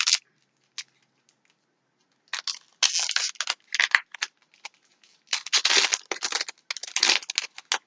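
Foil trading-card booster pack wrapper being torn open, crinkling and crackling in two spells: one about two seconds in and a longer one from about five seconds.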